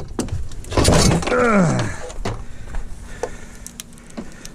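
Scrap being handled: a loud clatter about a second in, followed by a short sound that falls in pitch, then scattered light knocks and clicks.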